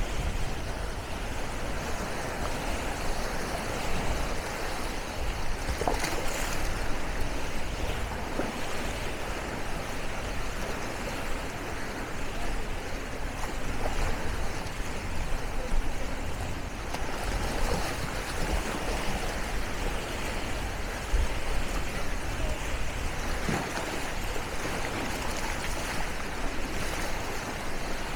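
Beach ambience: a steady rush of small waves washing on the shore, with a gusty low rumble of wind on the microphone.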